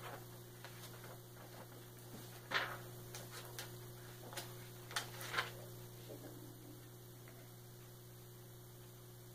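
Hymnal pages being leafed through: a few short paper flicks and rustles about two to five seconds in, over a steady electrical mains hum.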